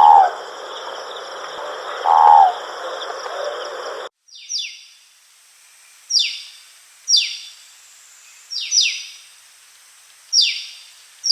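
Wild birds calling. First come two short, low calls about two seconds apart, each falling at the end, over a steady high-pitched background drone. After an abrupt cut comes a run of short, high whistles, each sliding sharply downward, about one a second.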